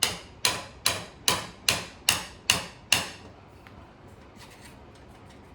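Hammer tapping eight times in an even rhythm, about two and a half taps a second, on a homemade wooden dowel tool to drive a new seal into a 1958 Daisy Red Ryder BB gun. The taps stop about three seconds in.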